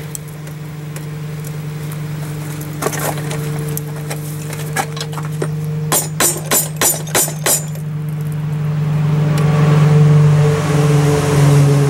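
Steady motor hum of an electric forge air blower, growing louder with rushing air near the end. About halfway through, a wooden mallet taps the twisted steel cable held in the vise in a quick run of about seven knocks, with a couple of single knocks before.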